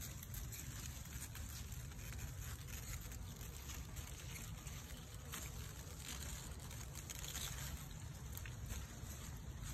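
Steady low wind rumble on an outdoor microphone, with faint scattered ticks over it.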